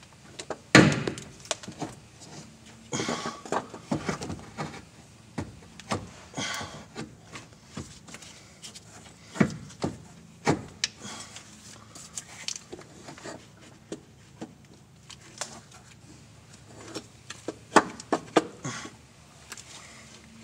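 A car alternator being worked by hand into its mounting position in the engine bay, knocking and scraping against the surrounding metal. Irregular clunks and clicks, the loudest about a second in and another cluster near the end.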